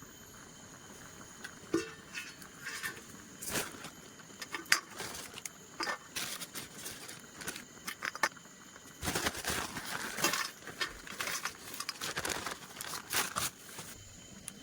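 Dry rice stalks rustling and crackling in irregular bursts as they are handled during harvest, busiest in the second half.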